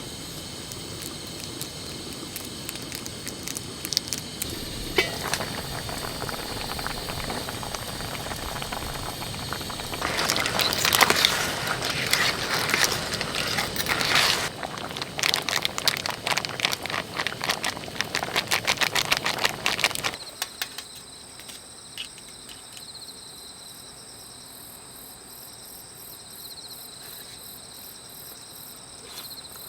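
Dense crackling with many sharp clicks and ticks, loudest in the middle, then an abrupt change to quieter steady insect chirping with a high, evenly pulsing trill.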